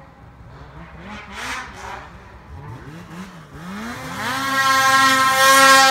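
Two-stroke mountain snowmobile engine. It blips unevenly at lower revs, then revs up sharply about four seconds in and holds high revs at full throttle.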